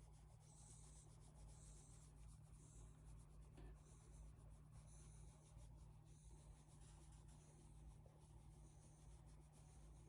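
Near silence with faint scratchy rubbing: many light, quick ticks and scrapes over a low steady hum.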